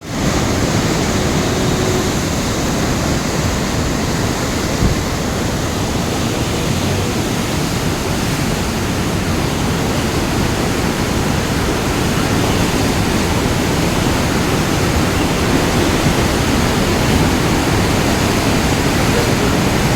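Fast-flowing floodwater rushing, a loud steady noise of churning water.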